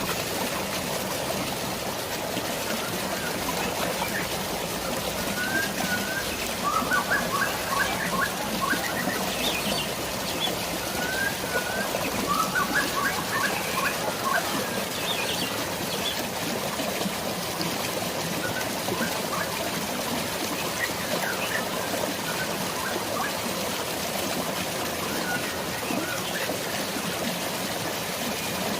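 Steady rush of flowing water with birds chirping over it, the chirping busiest in a run of quick repeated notes from about six to fourteen seconds in.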